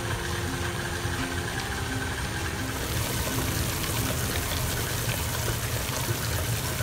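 Electric stand mixer running steadily, its beater churning a wet, sticky filling of chopped scallops and edamame in a steel bowl.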